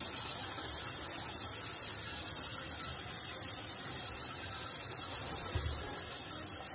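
Water running in a bathtub or shower: a steady, even hiss of spray.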